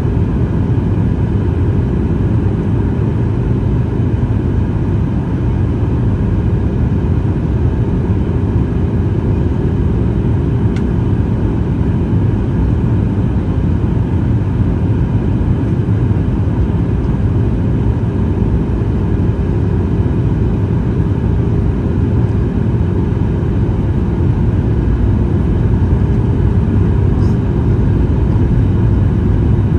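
Steady cabin noise of a Boeing 737-800 in flight, heard from a window seat beside the wing: rushing airflow and the hum of its CFM56-7B turbofan engines, with a faint steady tone running through it.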